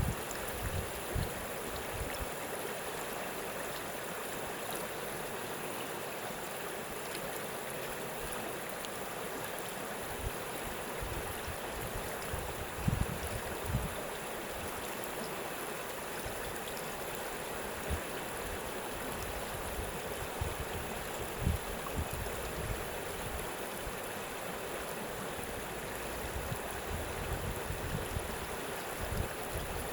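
Steady rushing and gurgling of a stream's running water, with a few brief louder bumps.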